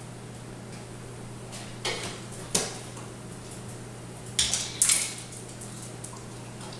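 A pet clambering on a kitchen counter and getting down, knocking things about: two pairs of sharp knocks and clatters, the second pair the loudest, over a steady low electrical hum.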